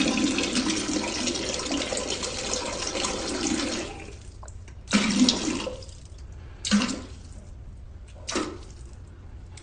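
Toilet flushing: a steady rush of water for about four seconds, then three short sounds spaced about a second and a half apart.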